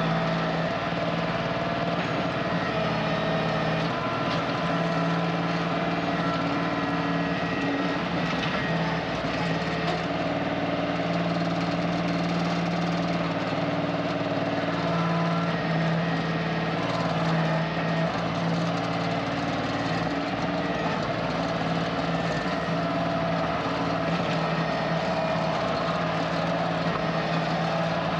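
Kioti CK2610 compact tractor's three-cylinder diesel engine running steadily, its note shifting slightly now and then as it works.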